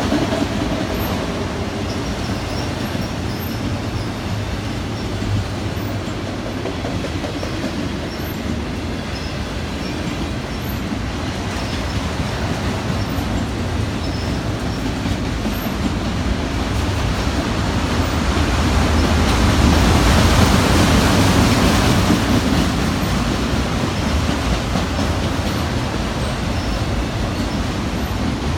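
Freight cars of a long train rolling past on the rails: a steady rumble of wheels with clatter over the rail joints, swelling louder about two-thirds of the way through.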